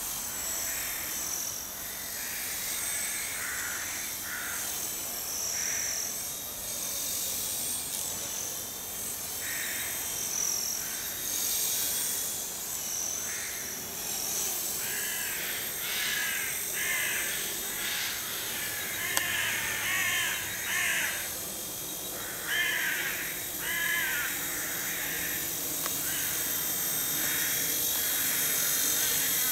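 Birds calling over and over, with many short repeated notes that come thickest in the middle part. Underneath runs a thin, steady high whine from a small homemade collective-pitch RC helicopter in flight.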